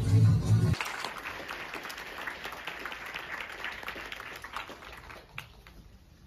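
Dance music with a heavy bass beat cuts off under a second in. An audience then claps, and the applause fades away over the next few seconds.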